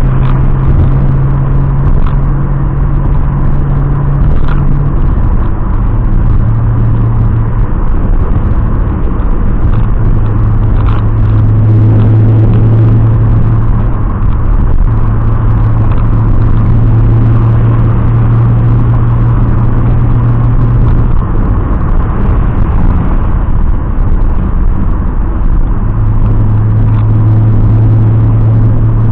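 Turbocharged BMW E30's M20B27 straight-six engine running while driving, a steady low drone that drops in pitch about five seconds in and fades for a few seconds twice.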